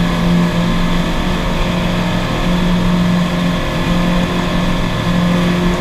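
Motorboat engine running steadily at towing speed, a constant hum over the rushing of the wake.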